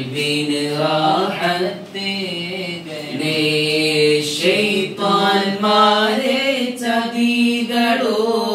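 A man's voice singing an Islamic devotional song without accompaniment. He holds long notes that slide and waver in ornamented phrases, with short breaths between them.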